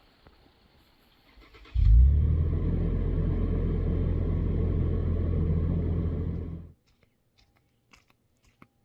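A car engine starts and runs steadily for about five seconds, then cuts off abruptly.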